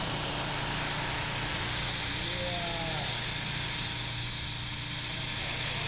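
Vertical milling machine running, its spindle-driven cutter boring out a round pocket in a metal part, with a steady machine hum under a constant hiss of compressed air blowing on the cut.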